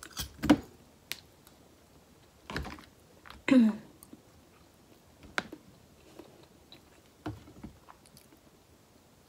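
Close-up eating sounds: a metal spoon and fork clinking and scraping against a plastic food container, and a mouthful of rice and chicken being chewed, heard as scattered separate clicks and smacks.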